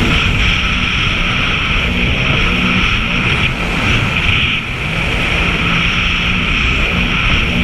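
Sea-Doo jet ski engine running under way, its pitch rising and falling a little as the throttle changes, over a steady rushing noise.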